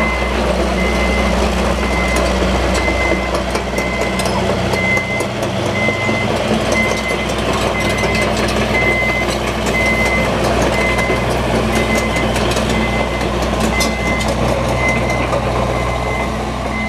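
John Deere 160D LC excavator tracking across gravel: its diesel engine running steadily under travel while the travel alarm beeps at a regular pace, with steel track links clicking over the stones.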